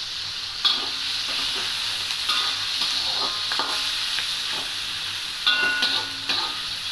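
Tomato, onion and chillies sizzling in hot oil in a kadai while a metal spatula stirs them, striking the pan in several ringing clinks.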